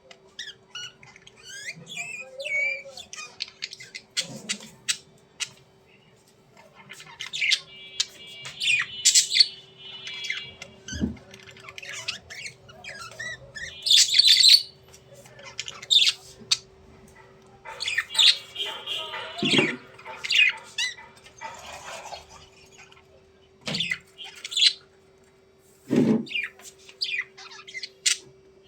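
Budgerigars chirping, warbling and squawking in short bursts throughout, with three dull thumps spread across the middle and end. A faint steady hum lies underneath.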